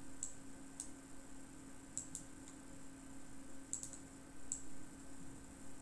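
About six short, sharp computer mouse clicks at irregular spacing, over a faint steady hum.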